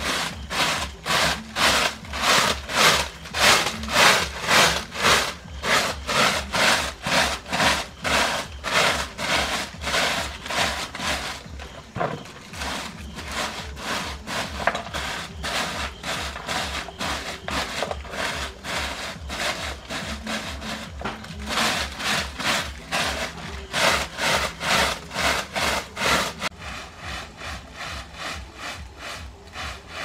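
Broom sweeping sawdust and dirt across bare ground in brisk scraping strokes, about three a second. The strokes grow softer about twelve seconds in, louder again a little past twenty seconds, and softer near the end.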